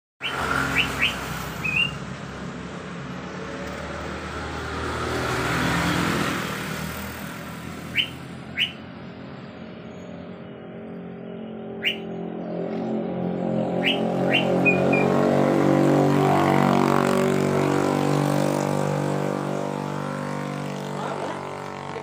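Short, sharp whistled calls from a caged Asian fairy-bluebird, given singly and in quick groups of two or three. They sound over the hum of passing motor vehicles, which swells twice and is loudest past the middle.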